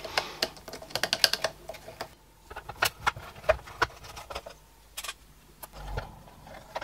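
Small hard plastic clicks and taps from a projector's plastic housing and panels being handled, in irregular clusters, with a dull bump near the end.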